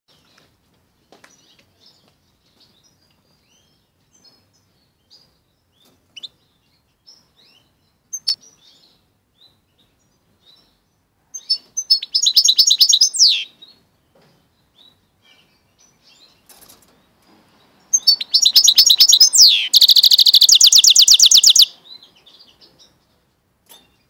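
Goldfinch × canary mule singing. Soft scattered chirps give way to two loud bursts of quick, high, twittering notes: a short phrase near the middle, and a longer one later that ends in a rapid, even trill.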